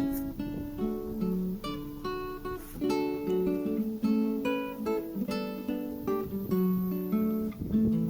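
Background music: acoustic guitar played with plucked notes and strums.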